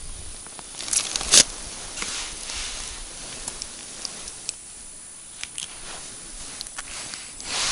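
Clothing rustle and scattered clicks as hands handle a small fish just lifted through an ice-fishing hole, with one sharp knock about a second and a half in and louder rustling near the end.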